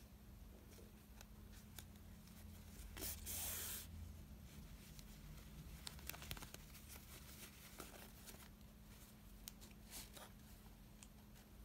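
Faint hand-sewing noises: cotton fabric and batting rustling in the hands with scattered light clicks, and one louder rasp of under a second about three seconds in, as needle and pearl cotton thread are drawn through the layers.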